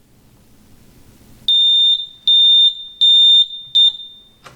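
Light-stack alarm horn beeping a single high tone four times, about three-quarters of a second apart, sounding the high-high tank level alarm. The fourth beep is cut short, and a single click follows near the end.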